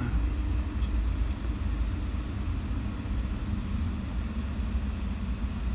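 Steady low road and tyre rumble inside the cabin of a BMW 7 Series rolling at about 35 km/h.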